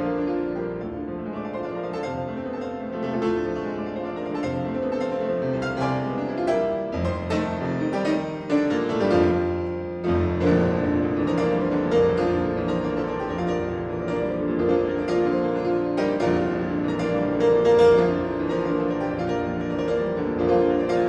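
Solo piano playing a classical piece in full, continuous chords and runs, with a strong accent about eight and a half seconds in.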